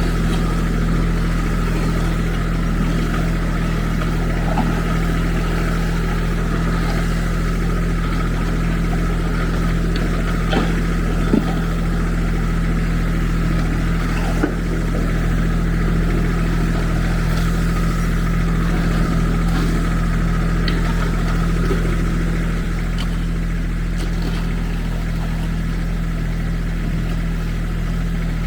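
Diesel engine of a Kubota SSV75 skid steer running steadily at an even speed, with a few short knocks partway through.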